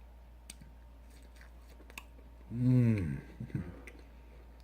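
Quiet wet mouth clicks of chewing. About two and a half seconds in, a man's loud hummed "mmm" rises and falls in pitch, then a shorter hum follows, as he tastes sriracha dipping sauce.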